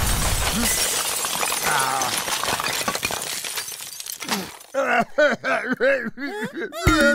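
Cartoon crash sound effect of a collapsing hut: a dense shattering, clattering rush of debris that fades away over about four seconds. Then a cartoon character sobbing in a quick run of short wails that rise and fall.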